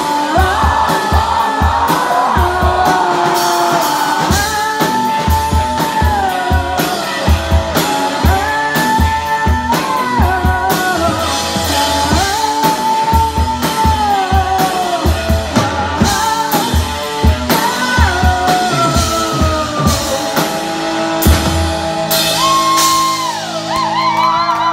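A live rock band playing: a woman sings over electric guitar and a drum kit, with a steady kick-drum beat and crashing cymbals, in a large room. Near the end the drumming stops and held guitar notes ring out as the song closes.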